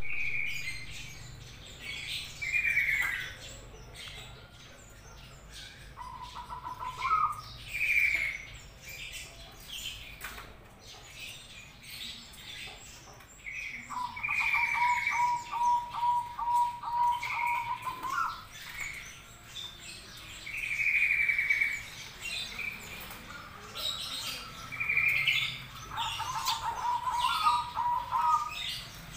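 Caged birds calling: repeated short high chirps and whistles, with three long trilled notes of lower pitch, the longest lasting about four seconds.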